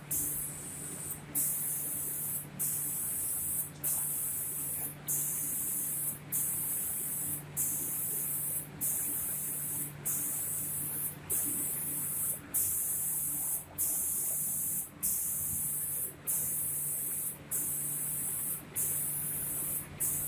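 Automatic spray gun of a door painting machine spraying in repeated passes, its hiss cutting off briefly about once a second, over a steady machine hum.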